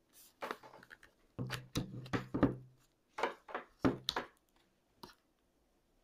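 Plastic smart-lock housing handled in the hands: a run of sharp clicks, taps and knocks in three quick clusters, then one last click, with a short low hum under the middle cluster.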